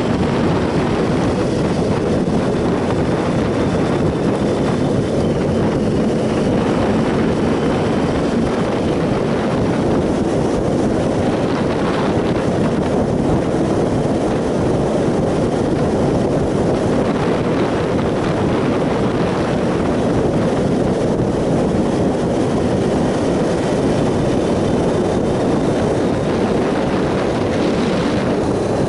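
Triumph Sprint ST 1050 three-cylinder engine running at a steady cruise, mixed with wind rushing over the microphone while riding.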